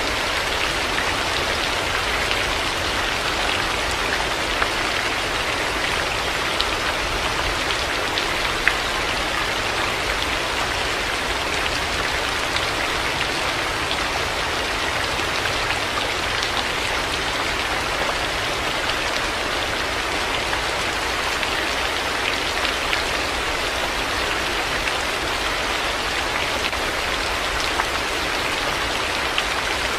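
Heavy rain falling steadily, a dense even hiss of drops on hard surfaces with now and then a single drop ticking out a little louder, over a low steady rumble.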